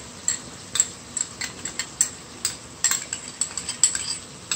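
A spoon knocking and scraping against the cooking pot as the pineapple and barbecue sauce are worked in: irregular sharp clinks, about three a second, over a low steady sizzle.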